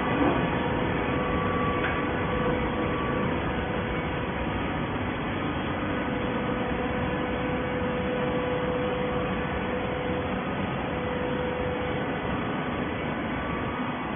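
Horizontal waste-paperboard baler running: a steady machine drone with a faint thin whine that fades in and out.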